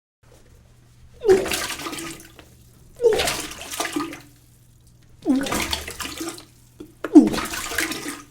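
A person vomiting four times in a row. Each heave is a short voiced retch followed by a gush of liquid splashing into water, over a low steady hum.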